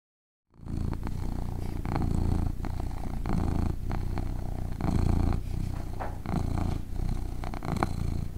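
Domestic cat purring, starting about half a second in and swelling and easing with each breath.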